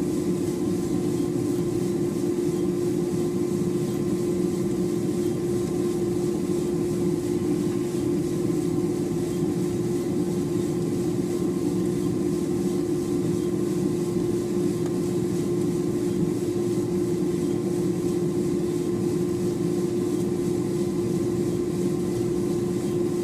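Diedrich drum coffee roaster running steadily with a 15-pound batch of beans in the drum, in the early drying stage of the roast. A steady machine hum with one strong droning tone over an even rushing noise.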